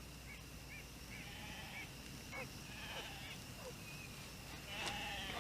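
Faint bird calls: short chirps repeating every half second or so, with a few lower gliding notes and one louder call near the end.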